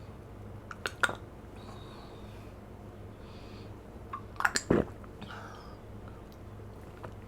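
Close-up wet mouth sounds of drinking yogurt: a couple of sharp clicks about a second in, then a louder cluster of smacks and swallowing noises a little past halfway, with soft breaths between.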